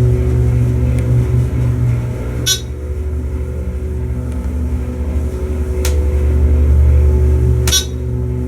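Dover hydraulic elevator running: a steady low hum from its drive, with three sharp clicks spread through the ride.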